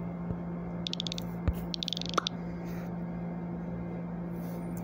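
Steady low hum with two short runs of rapid small clicks, about one and two seconds in, and a few single ticks.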